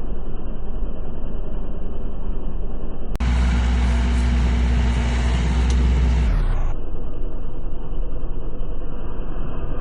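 Rice harvesting machine's engine running steadily, a low rumble. From about three seconds in it is louder and fuller with a steady low drone for a few seconds, then drops back.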